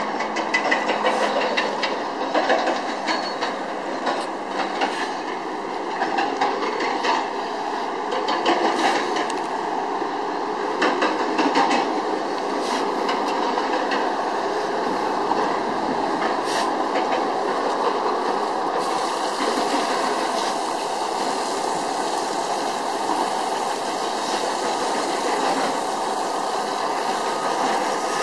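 Heavy quarry machinery running steadily, with irregular sharp metallic knocks and clanks through the first half.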